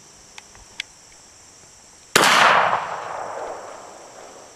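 A single gunshot a little past halfway, its echo dying away over about two seconds. Crickets chirp steadily underneath, and there are two faint clicks early on.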